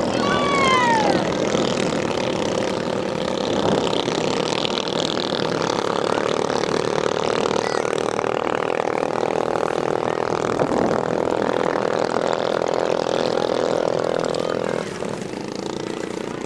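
Racing boat engine running at high revs across the water. Its pitch falls sharply as a boat passes in the first second, and the note drops and changes near the end.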